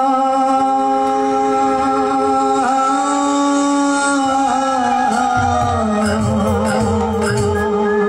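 Male voice singing a Buddhist kirtan through a PA, holding long drawn-out notes over keyboard accompaniment. A low drum beat comes in about five seconds in.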